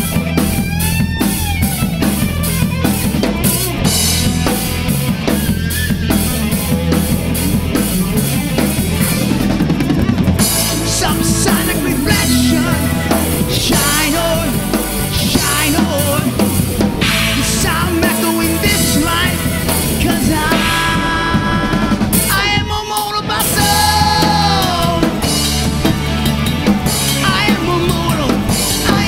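Rock band playing live: electric guitar over bass guitar and a drum kit with bass drum and snare, with a singer's voice at times.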